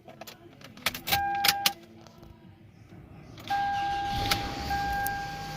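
Keys jangling and clicking, with a short steady warning chime, then about three and a half seconds in the 2012 Toyota Camry's engine starts and runs steadily while the chime tone carries on over it.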